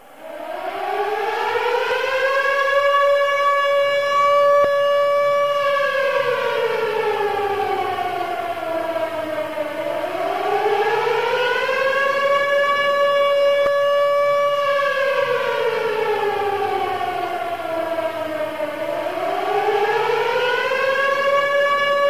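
Electronic civil-defence siren sounding the rising-and-falling wail of the German danger warning. It starts up from silence and climbs over about three seconds, holds, then slides down, repeating about every nine seconds. The signal means danger and calls on people to turn on local radio and follow official warnings.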